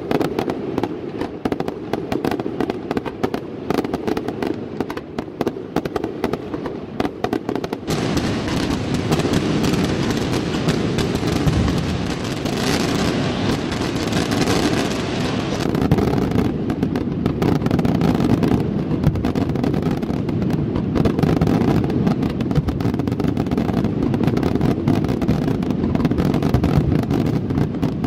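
Aerial fireworks shells bursting in rapid succession with dense crackling. About eight seconds in, this thickens suddenly into a continuous rumbling barrage of overlapping explosions with crackle over it.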